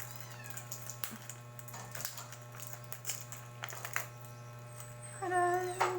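Scattered light clicks and taps of a power bank's box being handled and opened, then a short held call with a steady pitch about five seconds in.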